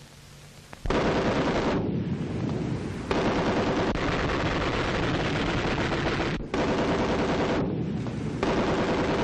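Water-cooled Browning M1917 machine gun firing long streams of rapid automatic fire. It opens about a second in, breaks off briefly about two-thirds of the way through, and stops at the end.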